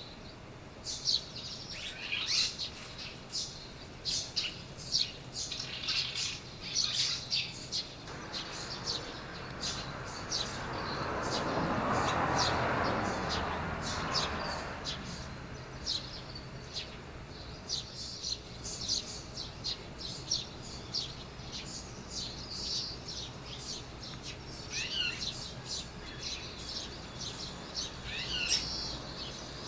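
Red-rumped swallows chirping: many short, sharp, high chirps in quick, irregular succession, with a few falling notes near the end. About a third of the way in, a rushing noise swells up and fades away again over several seconds beneath the chirps.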